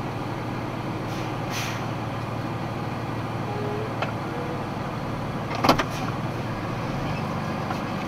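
Box truck engine running steadily at low speed, heard inside the cab as a low hum. A click comes about four seconds in, and a sharp clatter of clicks, the loudest sound, comes just before six seconds.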